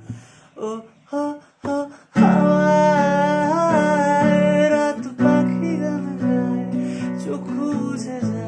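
Man singing a Bengali song to his own acoustic guitar: a few short sung phrases first, then a strummed chord about two seconds in under a long sung line that bends in pitch, and another strum around five seconds in.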